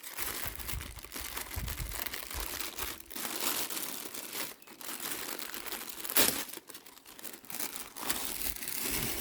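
A sealed bag wrapped around a loudspeaker being torn open and crinkled by hand, with a continuous crackle and a sharp, louder crack about six seconds in.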